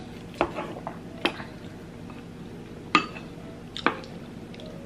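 A spoon clinking against a plate of rice while food is scooped up: four short, sharp clinks spread out over a few seconds.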